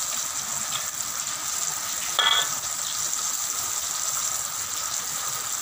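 Floured squid rings deep-frying in hot oil in a wok, a steady sizzle. A short ringing clink about two seconds in.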